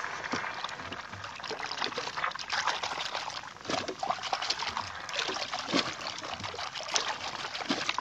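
Sea water splashing and trickling, in irregular small splashes, as a pink Indo-Pacific humpback dolphin surfaces and rolls close alongside the boat.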